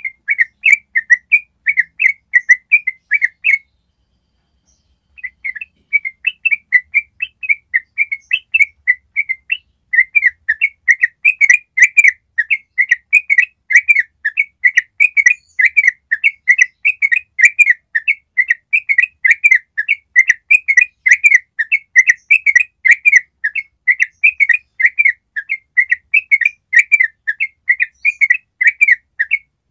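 Yellow-vented bulbul (trucuk) singing its long 'ropel' song: a fast, unbroken run of short repeated notes. The song stops for about a second and a half a few seconds in, then carries on without a break.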